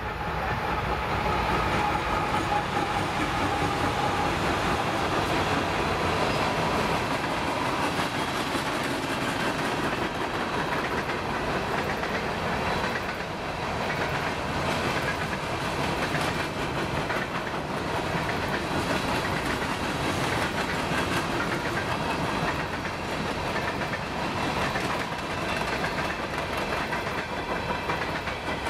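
A long freight train of hopper cars rolling steadily past, its steel wheels clattering over the rail joints.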